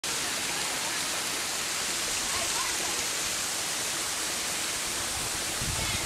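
Shallow mountain stream rushing steadily over stones.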